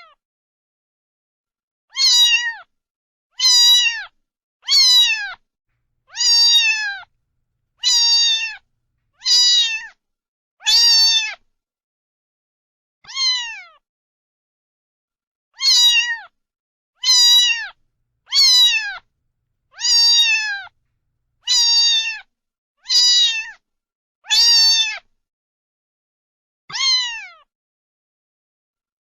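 Domestic cat meowing over and over: about sixteen short meows, each falling in pitch, coming every second or two with a longer pause near the middle, and dead silence between them.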